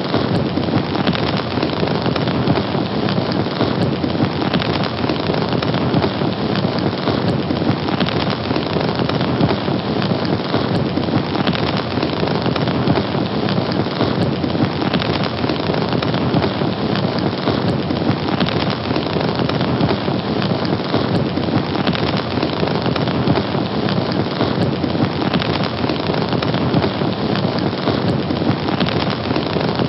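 Fire burning: a steady, dense crackling hiss that does not let up.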